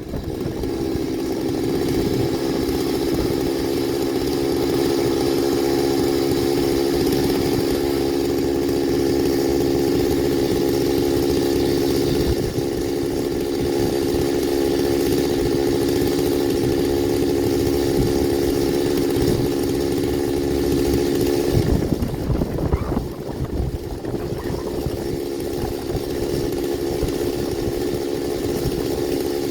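Two-stroke chainsaw running hard in an Alaskan chainsaw mill, ripping a hickory log lengthwise, with a steady high engine note. About 22 seconds in the pitch wavers and the engine drops to a rougher, less steady run.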